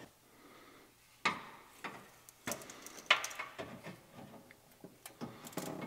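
Sharp knocks and clunks of an aluminium radiator with its fan shroud being set into the car's radiator support, starting about a second in and coming every half second or so.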